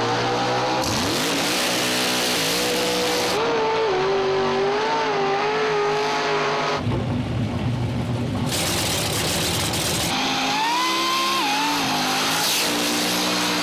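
Supercharged V8 drag cars revving hard and spinning their tyres in smoky burnouts, in a string of short clips that cut off suddenly several times. The engine pitch climbs and falls with the revs.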